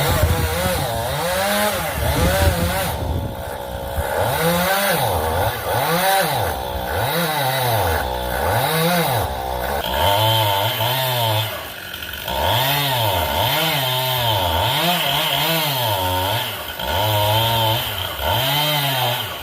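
Chainsaw running during the removal of a red oak, revved up and down over and over, its engine pitch rising and falling about once a second.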